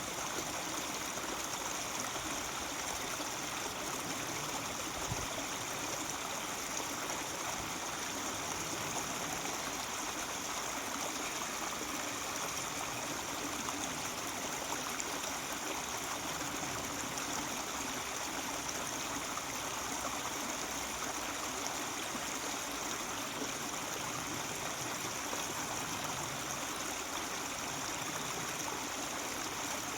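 Mountain stream babbling steadily over rocks, an even rushing and gurgling of water.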